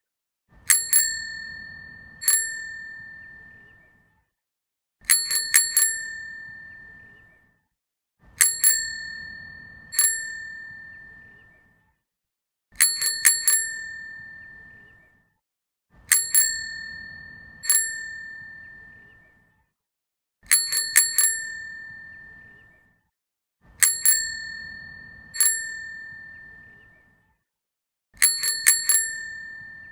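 Bicycle bell rung over and over in quick clusters of two to four dings, each ding ringing out and fading, with short silences between clusters about every three to four seconds.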